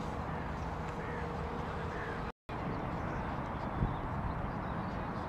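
Steady outdoor background noise with a few faint distant calls in the first two seconds; the sound cuts out completely for a moment about two and a half seconds in, at an edit, then the same noise resumes with a single soft knock near the end.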